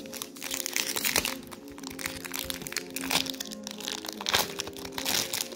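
Foil wrapper of a Pokémon trading card booster pack crinkling and crackling as it is handled and torn open by hand, over steady background music.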